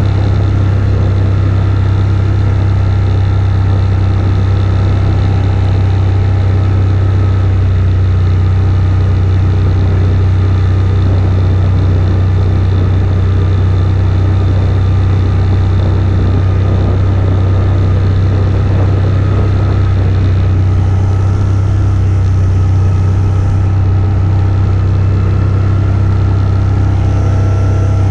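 AODES 1000 ATV's V-twin engine running steadily at a low, even speed, with no revving.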